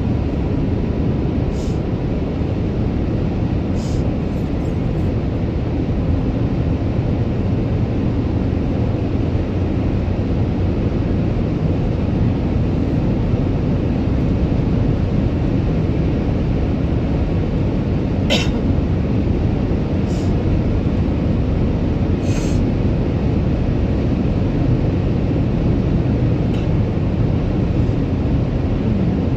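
Steady road and engine noise inside a moving car's cabin. A few brief clicks, the plainest about two-thirds of the way through.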